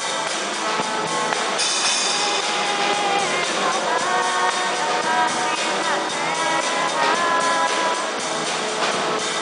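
Small band playing live: a man singing through a microphone over guitar and a drum kit.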